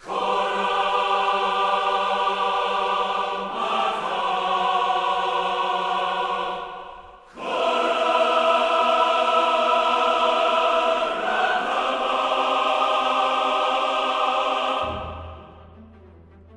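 Music with a choir holding long sustained chords. It breaks off briefly about seven seconds in, comes back, and fades away near the end.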